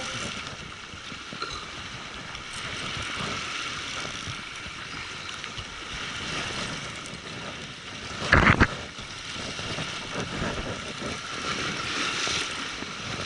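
Fishing reel being cranked hard and steadily while playing a large fish on a bent rod, with wind and sea noise, and one short loud bump about eight seconds in.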